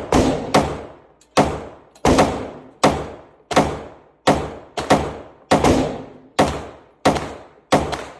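Pistol fired in a steady string, about a dozen shots roughly two-thirds of a second apart, each with a long ringing tail.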